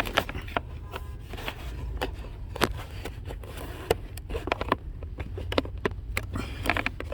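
Plastic trim parts being handled and pushed up into place: scattered clicks, taps and light scraping, over a low steady hum.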